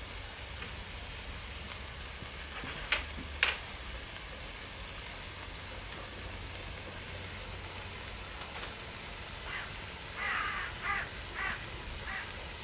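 Goat meat curry sizzling faintly in the pan as a steady hiss, with two light knocks about three seconds in and a few short raspy sounds near the end.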